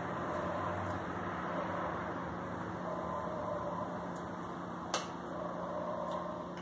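Steady background rumble with a faint constant hum, and a single sharp click about five seconds in.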